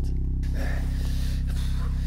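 A steady low hum holds throughout, with a man's soft breathy exhale from about half a second in.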